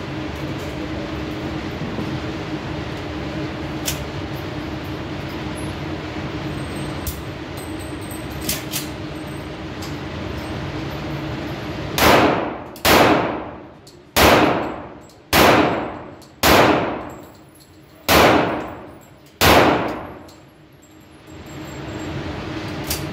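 Seven shots from a Springfield Armory 1911 pistol, fired one at a time at a deliberate pace over about seven seconds, each followed by a long echo in the enclosed range. Before the shots there is a steady background hum with a few faint clicks.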